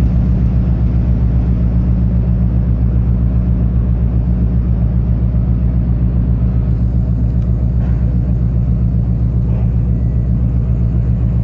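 A large ship's diesel engine running steadily: a deep drone with an even, rapid pulse.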